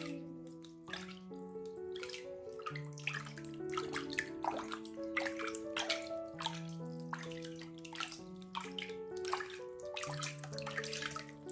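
Water splashing and dripping in a plastic tub in irregular small splashes as a hand scoops it over a baby monkey's head. Background music of slow, held notes plays throughout.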